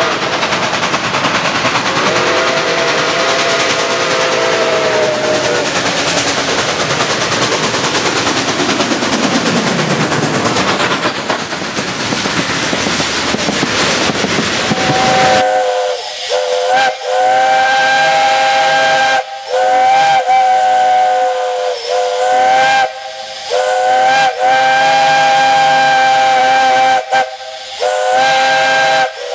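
Steam locomotive whistles at a whistle blow: a loud hiss of escaping steam with a chime whistle sounding briefly a couple of seconds in and a tone sliding downward, then from about halfway a multi-note chime whistle blown in a series of long and short blasts, its pitch sagging as each blast closes.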